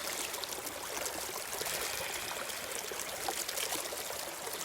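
Waterfall: water cascading and splashing in a steady, even rush, strongest in the upper range.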